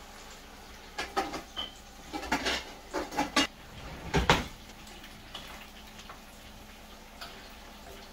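A kitchen drawer is pulled open and metal utensils clatter inside it: a quick run of knocks and rattles, loudest near the middle. Underneath, fish frying in a pan of oil gives a steady sizzle.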